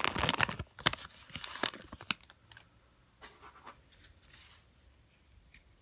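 Foil wrapper of a trading card pack crinkling as it is torn open and the cards are pulled out, loudest in the first two seconds, then a few faint rustles and clicks as the cards are handled.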